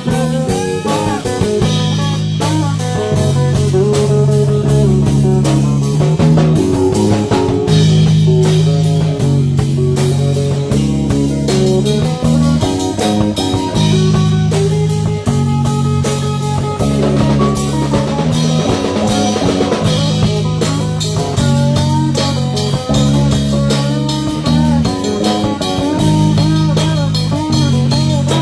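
Live rock band playing an instrumental passage: electric guitar lines over a steady bass and a busy drum kit.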